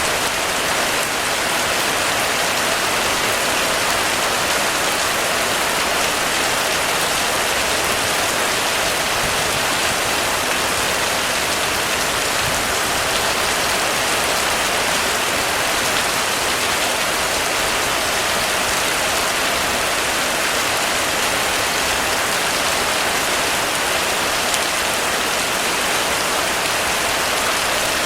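Heavy rain falling steadily on a roof: a dense, even patter with no let-up.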